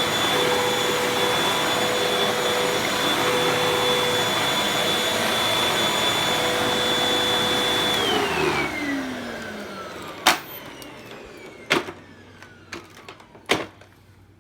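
Hoover Windtunnel UH70120 upright vacuum cleaner running steadily with a high whine, then switched off about eight seconds in, its motor winding down with a falling whine over a couple of seconds. A few sharp knocks follow as it goes quiet.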